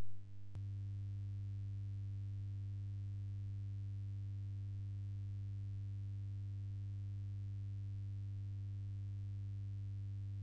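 Steady low electrical hum, the kind a sound system or mixer feed gives off in a pause of the microphone. It sets in with a small click about half a second in.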